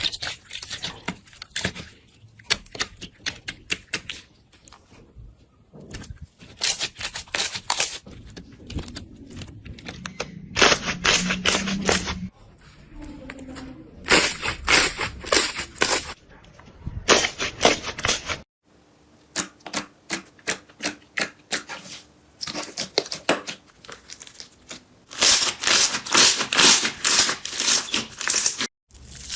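Slime being pressed and poked by hand, giving dense runs of crisp clicks and pops in bursts a second or two long.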